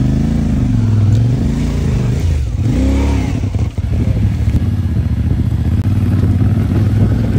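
CFMOTO 450MT's parallel-twin engine running at low speed. A few short throttle blips rise and fall between about one and three seconds in, then the engine settles back to a steady pace as the bike creeps across a narrow wooden bridge.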